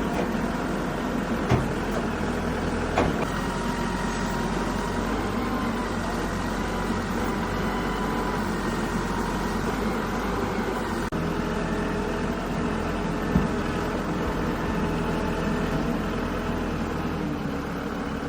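Backhoe loader's diesel engine running steadily, with a few short sharp knocks: two in the first few seconds and one about two-thirds of the way through.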